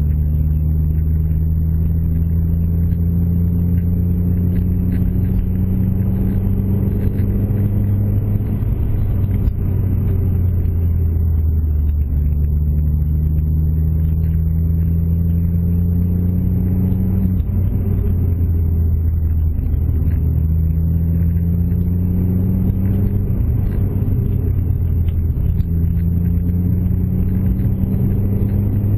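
Car engine and road rumble heard from inside the cabin while driving. The engine note climbs slowly and falls back about four times as the car speeds up and eases off, over a steady deep rumble.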